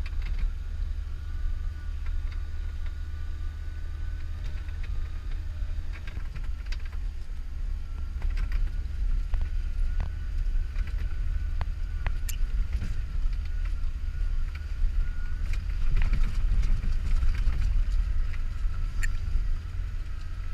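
Vehicle cabin noise while driving slowly over a rough, muddy dirt track: a steady low rumble of engine and running gear, a faint steady whine, and scattered knocks and rattles as the vehicle jolts over the ruts.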